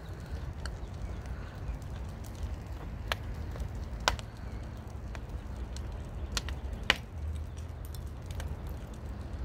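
Sharp knocks or strikes at irregular intervals, a second or a few seconds apart, over a steady low rumble; the loudest knock comes about two-thirds of the way through.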